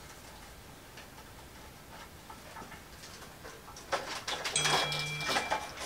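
Faint scattered ticking, then, about four seconds in, loud rustling and clicking of hands handling bundled wiring and plastic parts in a motorcycle fairing. Near the end a phone vibrates in two short buzzes.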